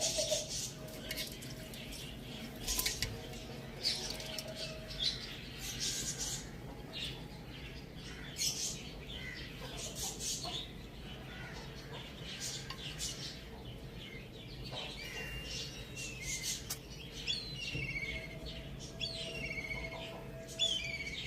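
Chickens feeding: scattered short clicks and scratches, with short falling chirps that come thicker in the last few seconds and a faint low held call at the start and near the end.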